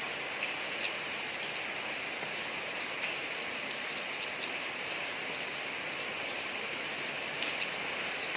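Steady rain falling on a street, an even hiss with occasional louder drips.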